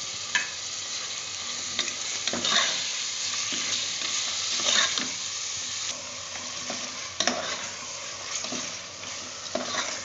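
Mutton masala with curd sizzling in an aluminium pressure cooker while a metal spoon stirs it, with the spoon knocking and scraping against the pot now and then.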